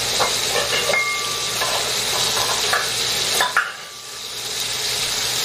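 Chicken pieces searing in lard in a cast-iron pan, sizzling steadily, with a few light clicks. The sizzle drops away briefly about three and a half seconds in, then builds back.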